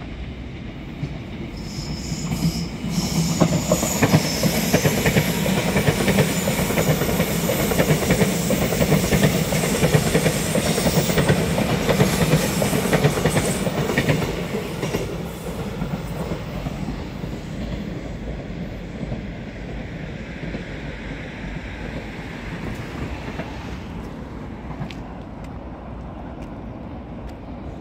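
Electric commuter subway train passing close by on the track: it swells from about three seconds in, runs loudest for about ten seconds, then fades to a lower rumble as it moves away.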